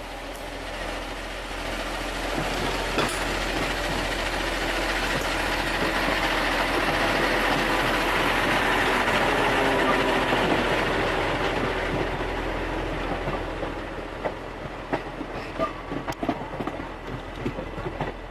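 DGS 62-PLS dynamic track stabilising machine and its trailing coach passing close by: a steady rumble of wheels on rails that swells to a peak about ten seconds in and then fades. A few sharp clicks come in the last few seconds as the tail of the train goes by.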